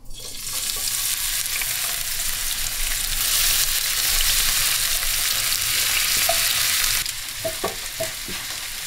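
Thinly sliced onions sizzling as they are sautéed in hot oil in a frying pan. The sizzle starts suddenly, goes on loudly for about seven seconds, then drops lower, with a few light knocks near the end.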